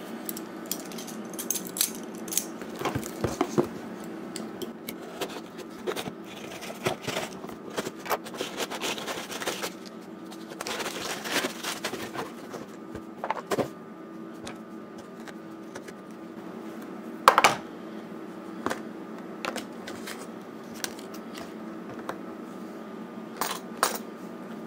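A cardboard mailing box being opened by hand: packing paper rustling and crumpling, scrapes and clicks of handling on a desk, and a plastic coin tube being lifted out. The loudest sound is a single sharp knock about two-thirds of the way through, over a steady low hum.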